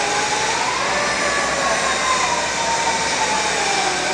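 Waytrain UE-460DSA band saw machine running: a steady mechanical noise with a faint whine that drifts slowly up and down in pitch.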